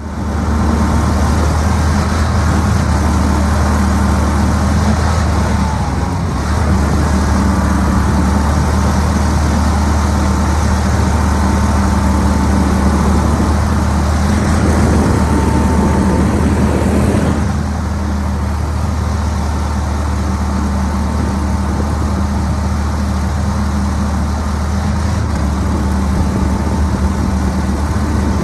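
40 hp EFI Pro-Drive surface-drive outboard (mud motor) running steadily under load, pushing a flat-bottom boat through thick water hyacinths; its level eases slightly about two-thirds of the way through.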